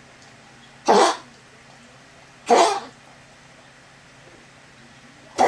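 A dog coughing: three short coughs, the second about a second and a half after the first and the third about three seconds later, right at the end.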